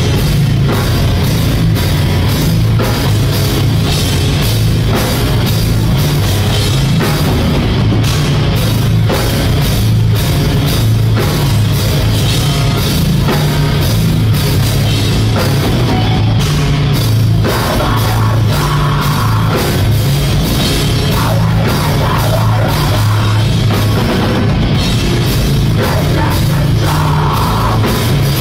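Live rock band playing loud, heavy music: electric guitar over a drum kit keeping a steady beat.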